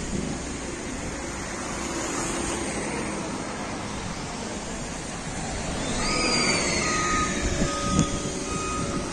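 Street traffic noise with cars passing. About six seconds in, a falling whine is heard, and a vehicle's reversing alarm starts beeping at a steady pace.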